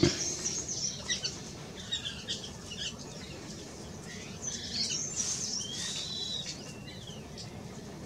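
White-throated laughingthrushes calling: a busy run of short high chirps and whistles, with one longer whistle a little past halfway. A single knock right at the start.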